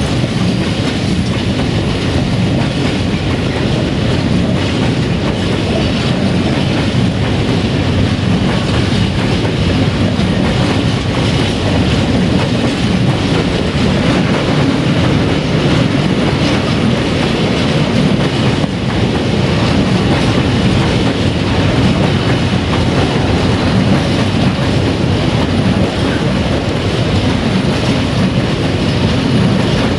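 Open-top freight wagons rolling past at close range: steady, continuous running noise of steel wheels on the rails, with a dense clatter of wheels passing over the rail.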